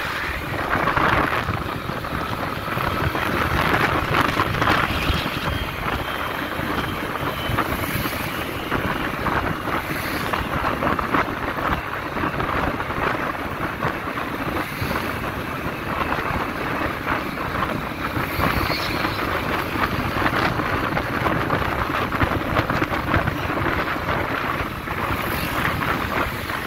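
Wind rushing over the microphone of a camera riding in open air through traffic, with steady vehicle engine and road noise underneath.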